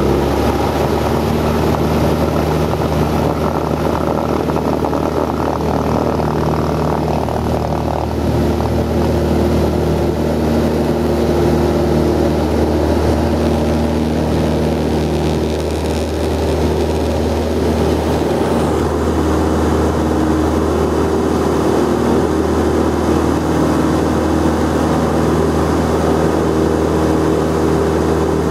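Cessna 172's piston engine and propeller at full power, heard from inside the cockpit: a loud, steady drone through the takeoff roll and climb-out.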